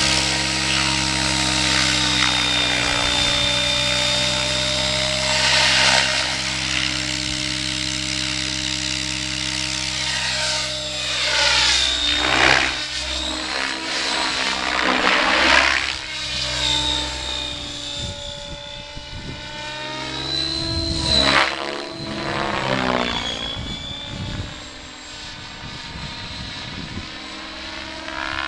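Radio-controlled model helicopter in flight: its rotor and motor make a steady pitched whine that settles to flying speed in the first second, with whooshing swells of rotor noise several times as it manoeuvres, growing fainter near the end as it flies farther off.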